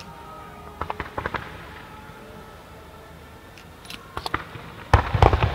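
Fireworks going off in a display: a quick cluster of bangs about a second in, a few more just after four seconds, and the loudest run of bangs near the end.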